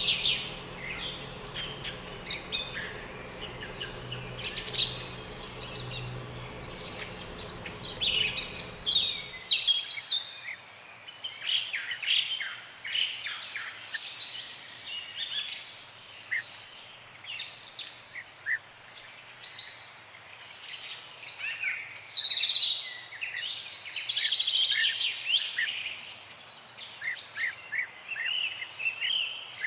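Several songbirds chirping and singing at once in a busy chorus of short, overlapping chirps and trills. A low steady hum underneath cuts off suddenly about ten seconds in.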